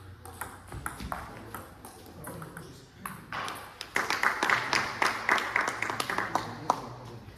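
Table tennis ball clicking off bats and the table in a rally. The clicks are spaced out at first, then come as a louder, rapid run from about four seconds in until just before the end.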